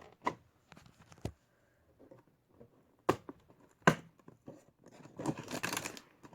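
A small cardboard advent-calendar box being opened by hand: a few sharp clicks and taps of card, then packaging crinkling and tearing near the end.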